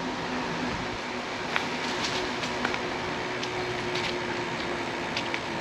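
Steady rolling noise of an e-bike being ridden, with scattered light clicks and rattles and a faint steady hum from about two seconds in.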